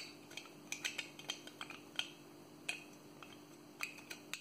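Light, irregular clicks and taps of a diecast metal toy bulldozer being handled and turned over in the hands, its metal parts knocking together about a dozen times.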